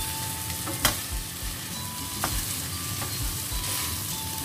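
Cooked rice sizzling in a stainless steel frying pan while a wooden spoon stirs and tosses it, with a sharp click about a second in and a smaller one a little after two seconds.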